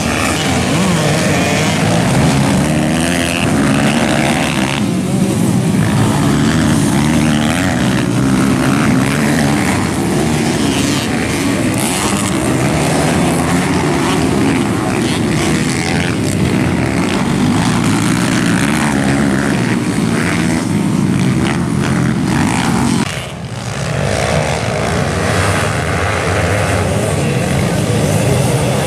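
Several trail motorcycles racing on a dirt track, engines revving up and down as the riders accelerate and ease off through corners. The sound drops briefly about three quarters of the way through, then picks up again.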